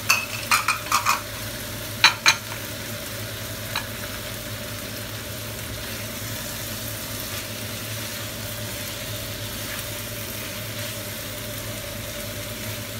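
Mutton fry sizzling in a frying pan while it is stirred and turned with a wooden spatula, with a few sharp knocks of the spatula against the pan in the first few seconds and one more at about four seconds.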